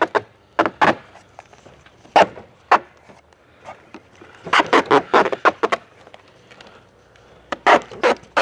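Duct tape being pulled off the roll and torn in short, sharp rips, several in quick succession about halfway through.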